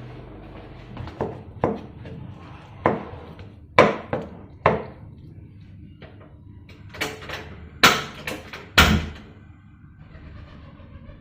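Kitchen clatter while cooking: about ten sharp knocks and clanks of cookware and utensils being handled, irregularly spaced, loudest near the middle and toward the end.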